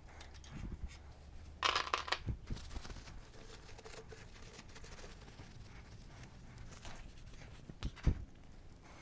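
A short tearing or crinkling rustle about two seconds in, then a couple of dull knocks near the end, against quiet room tone.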